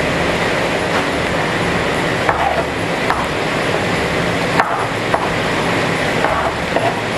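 Knife cutting tomatoes into large cubes on a wooden cutting board: a handful of irregular knocks of the blade against the board over a steady hiss.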